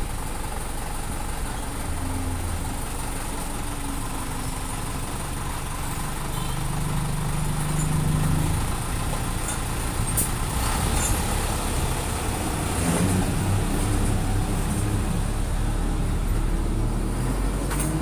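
Steady road traffic with vehicle engines passing, their low drone swelling and fading. A few light clicks and clinks come about halfway through.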